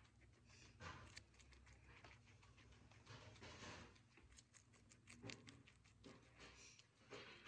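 Guinea pig eating hay close up: faint quick crunching clicks of chewing, with brief rustles of the dry hay.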